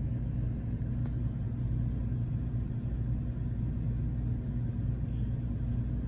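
Dometic 13.5K BTU rooftop air conditioner running on solar and battery power: a steady, even low hum.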